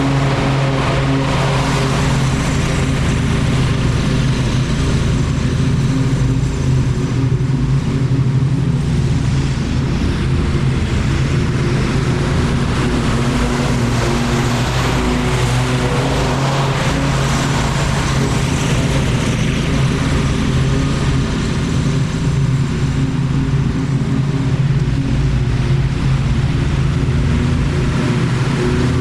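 Lawn mower engine running steadily at working speed through thick grass.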